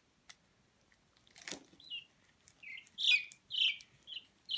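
Pea chick peeping: about six short, falling chirps in quick succession through the second half, with a brief crackle a second and a half in.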